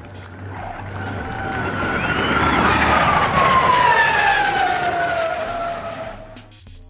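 A formation of Lockheed F-104 Starfighters flying past, the jet noise of their General Electric J79 turbojets swelling to a peak about three to four seconds in and then fading away. A whine falls steadily in pitch as the jets pass.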